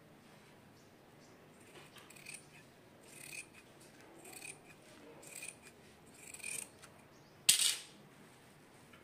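Fabric scissors snipping through folded blouse cloth, five cuts about a second apart, each building to a crisp snap as the blades close. A single sharp click, the loudest sound, comes near the end.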